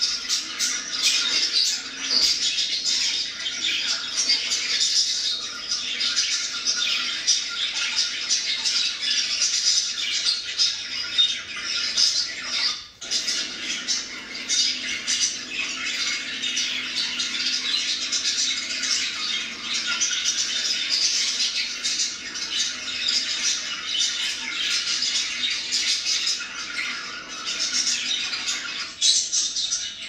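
Budgerigars chattering and warbling without pause, a dense stream of quick chirps and squawks, with a short break about thirteen seconds in.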